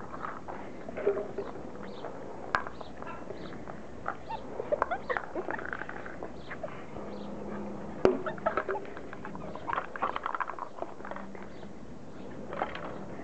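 Border collie puppies playing and wrestling, making short high squeaks, yips and little growls, with a couple of sharp knocks.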